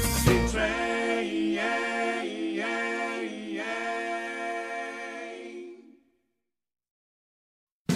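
Background music: a song ends on held, sung harmonies that shift pitch together and fade out about six seconds in, leaving silence until the next song starts just before the end.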